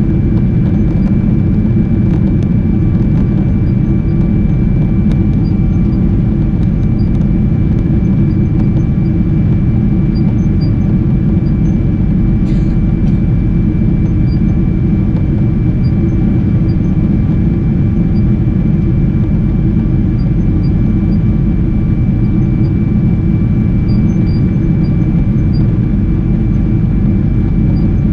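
Steady cabin noise inside a Boeing 777-300 in flight: a deep, even rumble of the engines and rushing air, with a thin steady high whine above it.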